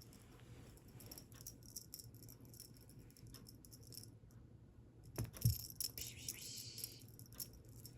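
Light rattling and clicking as cats play with a toy, with a thump about five seconds in followed by a brief rustle.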